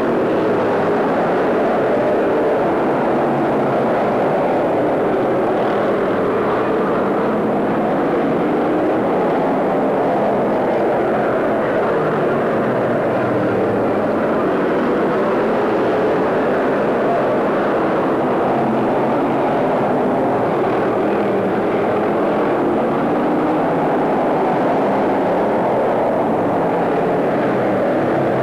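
A pack of stock cars racing on a short oval track, several engines running hard together in a steady, unbroken din.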